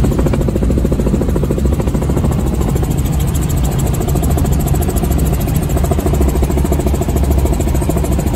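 Helicopter in flight heard from inside the cabin: loud, steady engine and rotor noise with a fast, even throb.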